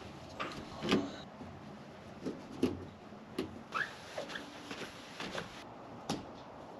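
Light handling noises from fitting LED light bars to a truck camper shell's carpeted ceiling: scattered soft knocks, clicks and rustles, with a short squeak about four seconds in.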